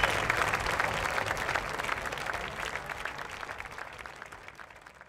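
Theatre audience applauding, the clapping fading out steadily.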